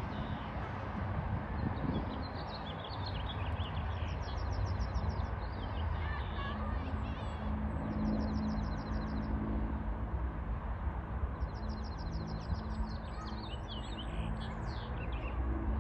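Small birds chirping, with short high chirps and rapid trilled series about a second long that recur every few seconds, over a steady low rumble.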